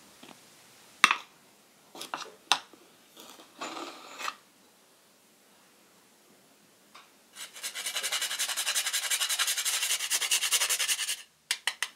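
Whole nutmeg grated on a fine rasp grater: quick, evenly repeated scraping strokes for about four seconds, starting a little past halfway through. Before it come a few sharp clicks and taps, the loudest about a second in, and a couple more clicks just after the scraping stops.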